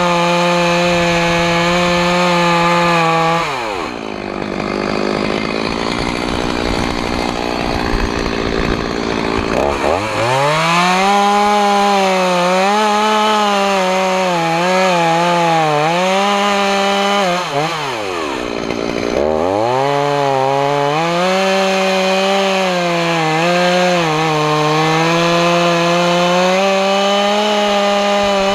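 Stihl chainsaw cutting into a large oak trunk, the engine running at high revs with its pitch wavering under load. About four seconds in it drops away into a rough, lower sound for several seconds, then revs back up; it dips briefly again near the end of the middle and revs up once more.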